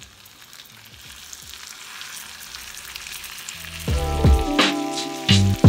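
Mahi-mahi pieces sizzling in hot melted butter in a stainless steel pan, the hiss growing louder. About four seconds in, background music with a bass beat comes in and becomes the loudest sound.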